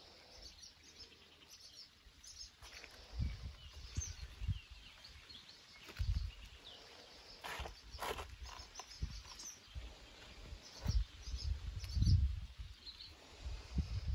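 Small birds chirping and twittering in short, high calls throughout, with several low rumbles on the microphone, the loudest near the end.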